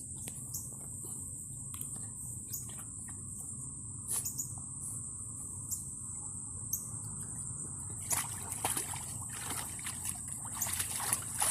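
Steady high-pitched drone of chirring insects, with scattered small water clicks and trickles that turn into light splashing and sloshing of water from about eight seconds in.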